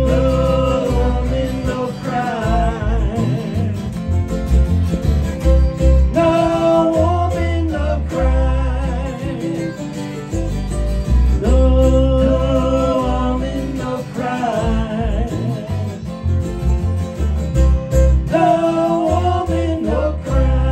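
Background music: a country-style song with guitar and a singing voice over a steady bass beat.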